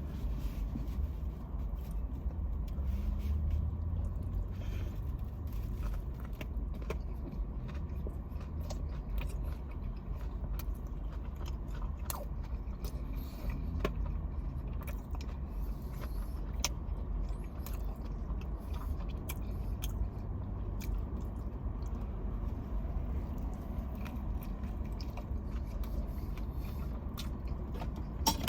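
Close-up chewing and biting of a hot chicken slider (fried chicken on a bun): soft mouth sounds with scattered small crunches and clicks. A steady low hum runs underneath.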